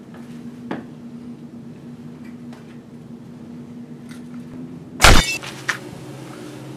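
A few light clicks and knocks over a steady low hum, then one loud sharp bang about five seconds in, followed by a smaller knock.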